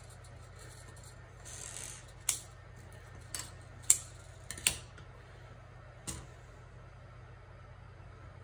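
About five sharp, irregular clicks and light taps of scissors and armature wire being handled on a worktable, the loudest about four seconds in, after a brief soft rustle near the start.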